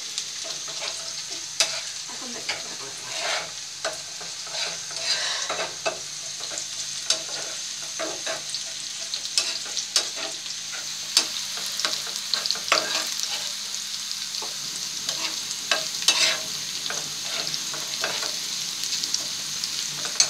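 Chopped onions frying in oil in a pan, a steady sizzle, while a metal spatula stirs them with irregular scrapes and clicks against the pan. The onions are close to done.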